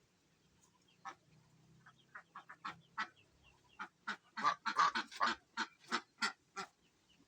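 A bird giving short, harsh honking calls, scattered at first, then a fast run of louder calls through the middle that breaks off before the end.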